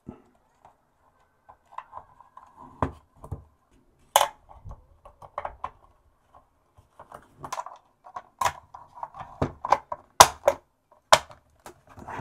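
Plastic case of a Makita-compatible battery pack being fitted together and pressed shut: irregular plastic clicks, knocks and small rattles. There is one sharp click about four seconds in, and the clicks come thicker over the last few seconds.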